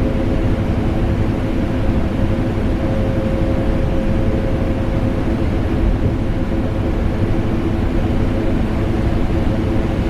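Vacuum cleaner motor running together with an air conditioner: a deep, unbroken rushing noise with a steady hum in it.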